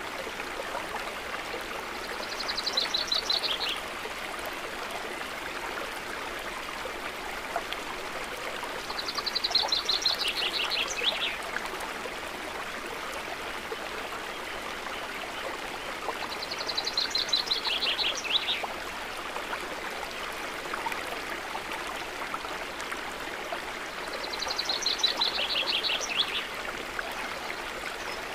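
Steady trickling of gently flowing water. A songbird sings the same short trilled phrase four times, about every seven seconds, each phrase stepping down in pitch.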